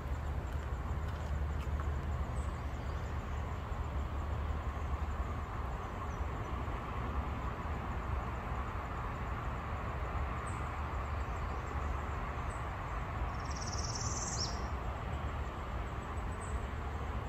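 Steady outdoor background noise with a low rumble, and one short high bird chirp about fourteen seconds in.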